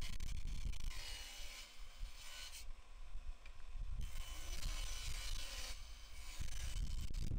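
Table saw ripping poplar boards into strips: the motor runs steadily while the blade cuts the wood. It is loudest in the first second and again near the end, with quieter stretches between cuts.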